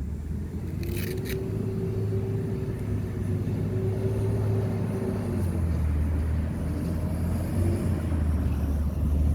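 Low, steady motor-vehicle rumble with a constant hum over it, and a brief knock about a second in.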